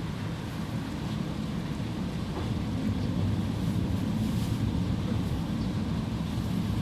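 Steady low rumble of wind buffeting the microphone during a rainstorm.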